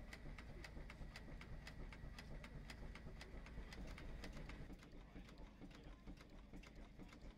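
Clayton & Shuttleworth steam traction engine running stationary, its reciprocating motion giving a steady rhythmic ticking of about five clicks a second over a low rumble. The clicking turns fainter about two thirds of the way through.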